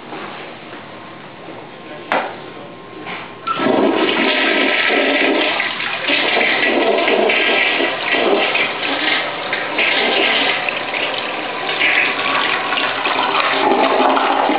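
Kohler tank toilet flushing: a sharp click about two seconds in, then, about a second and a half later, the loud rush of water swirling down the bowl, which keeps running as the bowl refills.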